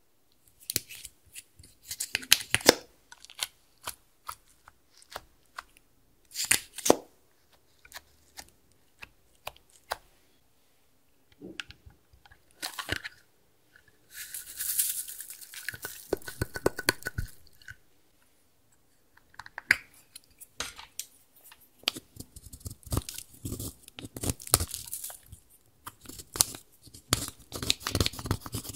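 Close-miked handling sounds over a dish of slime: scattered plastic clicks and taps, then about halfway a steady hiss of about four seconds as the contents of a small plastic cup are poured out. Near the end comes dense gritty scraping as pressed eyeshadow powder is scraped out of its compact with a plastic spatula.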